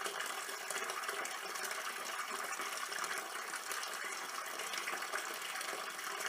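Water running steadily into a garden fish pond, a constant splashing hiss with no pauses.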